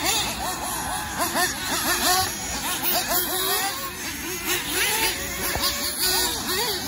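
Several nitro-powered RC off-road buggies racing, their small engines revving up and falling back in pitch over and over with throttle as they go round the track.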